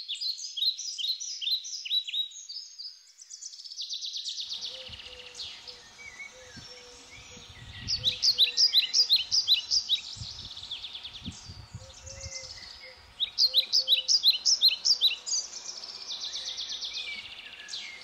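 A songbird singing loud phrases of rapid, repeated sharp notes alternating with buzzy trills, in bouts a few seconds apart. A faint low rumble sits beneath from about four seconds in.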